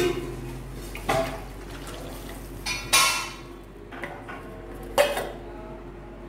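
Metal cookware clanking: a steel bowl and utensils knocking against the metal kadai and stove, about five sharp clanks with a brief ring, the loudest around three and five seconds in.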